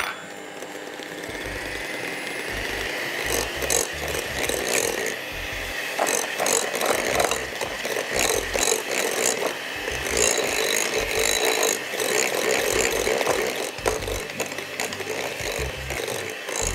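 Anex electric hand mixer beating cookie dough of butter, brown sugar and eggs in a glass bowl, its motor running steadily with intermittent rattling and clicking of the beaters.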